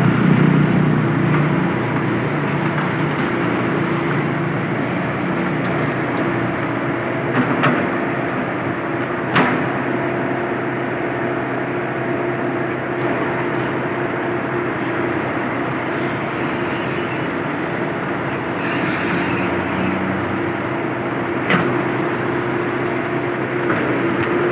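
Excavator's diesel engine running steadily at a constant pace, with a few sharp knocks from the demolition work.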